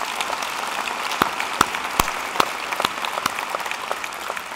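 Audience applauding: a steady patter of many hands, with a few sharper claps standing out at an even pace of two or three a second. The applause starts to die down near the end.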